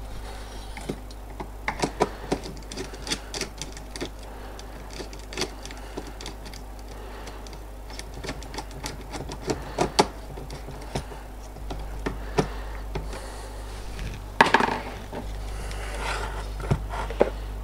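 Irregular small clicks and taps of a screwdriver and wire jumper being worked into the screw terminals of an IEK AVR-1 Standard modular automatic transfer switch, with a louder brief handling noise about fourteen seconds in.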